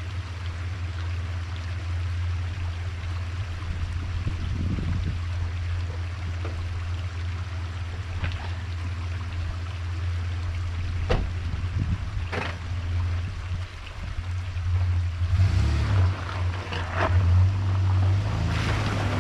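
Toyota Land Cruiser engine idling with a steady low hum. There are two sharp knocks about halfway through. Near the end the engine grows louder as the truck crawls up over rocks in low range with the center diff and rear locker engaged.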